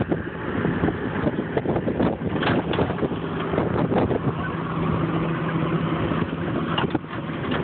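Rough wind noise and knocks on a phone microphone, with a steady engine hum joining about three seconds in and fading out near the end.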